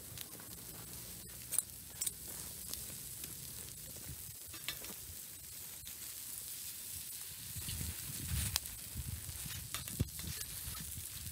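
Bacon slices and onions sizzling steadily on a hot iron griddle over a wood fire, with a few sharp pops. From about two-thirds of the way in there are handling knocks as an egg is cracked onto the griddle and starts to fry.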